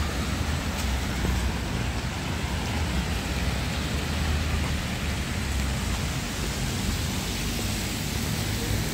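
Steady outdoor city street noise: a continuous deep rumble under an even hiss, with no distinct events.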